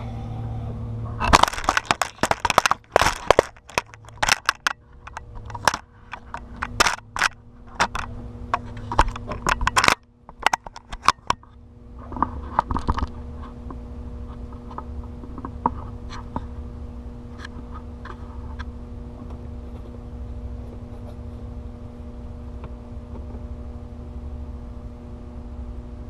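Sharp metallic clicks, scrapes and clanks of hand tools loosening bolts on the valve cover of an International DT466 diesel. They are irregular and loud for about ten seconds, then die down to a few scattered ticks over a steady low hum.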